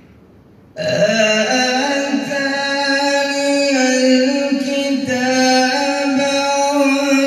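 A man reciting the Quran in a melodic, drawn-out chant into a hand-held microphone. After a short pause, one long ornamented line begins about a second in, held loud and steady with small turns in pitch.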